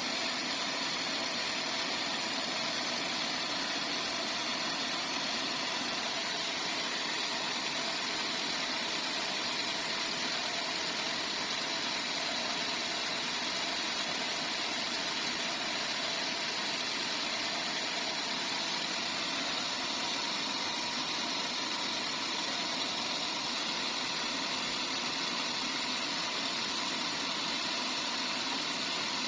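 Band sawmill running steadily: an even machine drone with a steady high whine, unchanging throughout.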